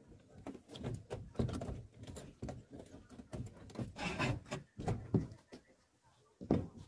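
Steel rebar and stirrups of a beam cage being handled and tied, in irregular knocks, clinks and scrapes of bar against bar.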